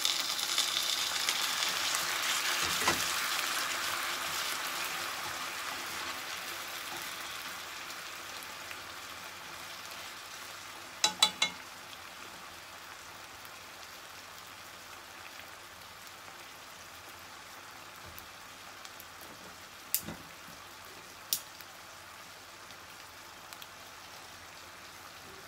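Pork broth poured into a hot frying pan of pork feet and onions, sizzling loudly at first and fading over about ten seconds to a quiet simmer. A quick triple clatter about eleven seconds in and two single clicks later.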